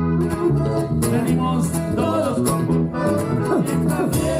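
Live band music: guitar and accordion playing over a steady bass line, typical of a norteño group.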